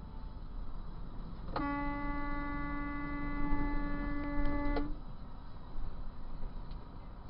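Big rig's horn blown in one long steady blast of about three seconds, starting about a second and a half in, over the low rumble of the moving truck: a warning at a motorhome cutting in front.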